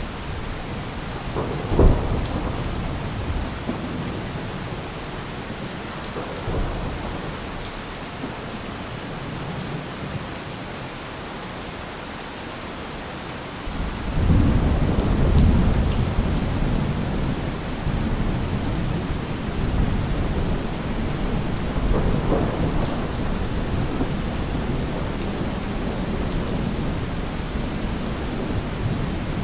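Thunderstorm: steady rain falling, with a sharp thunderclap about two seconds in, then a long low rolling rumble of thunder that swells about halfway through and keeps rumbling.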